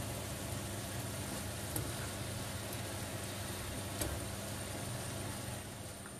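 Steady sizzling of a chopped eggplant and ground beef mixture frying in a pan, over a steady low hum, with a couple of light knocks of a wooden spatula stirring it.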